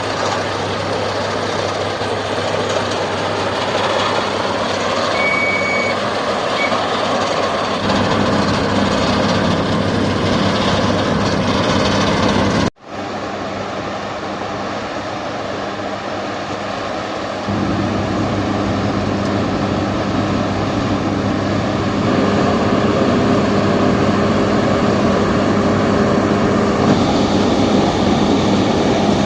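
Heavy diesel road-construction machinery running steadily, with a short high beep about five seconds in. The sound drops out for an instant about thirteen seconds in and comes back louder a few seconds later.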